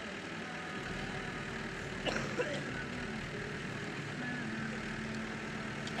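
Steady outdoor background din with a low, engine-like hum and faint distant voices, and a brief sharp knock or clatter about two seconds in.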